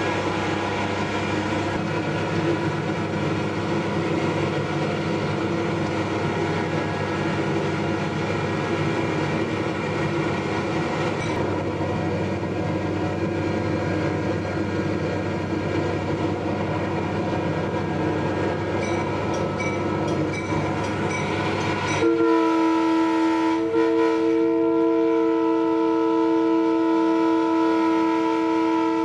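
Diesel locomotive running steadily as it rolls along the track. About 22 seconds in, its horn sounds loudly, with a brief break just after it starts, and holds for about seven seconds.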